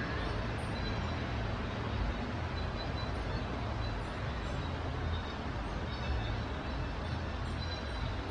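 Ocean surf on a beach: a steady rush of noise over a deep rumble, with no single wave break standing out.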